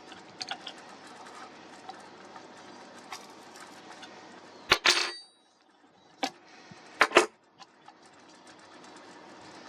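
A few sharp knocks and clicks of hard objects over a steady low hiss, the loudest cluster about halfway through, then a pair a couple of seconds later.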